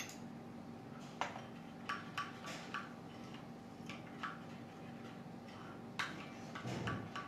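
Metal spoon clinking and scraping against a glass bowl while batter is stirred: about a dozen light, irregular clinks.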